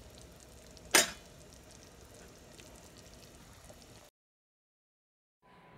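Beef pieces boiling in water in a stainless steel stockpot: a faint, steady bubbling hiss, with one sharp clink about a second in. The sound drops out to dead silence for over a second near the end.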